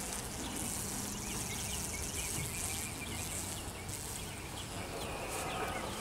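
Honeybees buzzing over an opened hive box, a steady hum, with short high chirps throughout.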